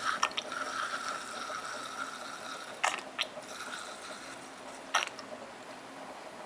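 Handling noise from the hand warmer's filler cup being moved about: four or so sharp clicks and light knocks, two close together about three seconds in and another about five seconds in, over a faint hiss.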